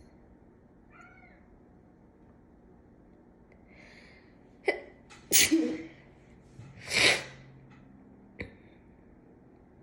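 A woman sneezing twice, hard, about five and a half and seven seconds in: allergic sneezes set off by tickling the nostril with a cat whisker. A cat meows faintly about a second in.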